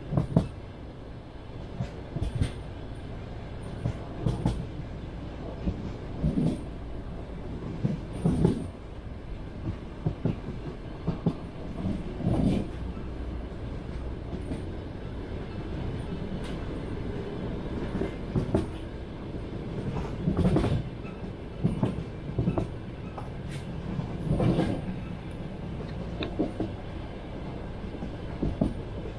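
Passenger train wheels clattering over rail joints, heard from inside a moving carriage: a steady low rumble with sharp knocks about every two seconds.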